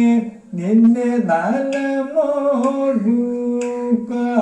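A man singing a Kathakali padam in Carnatic style, a solo voice holding long notes and bending them in slow ornamental glides, with a short breath about half a second in.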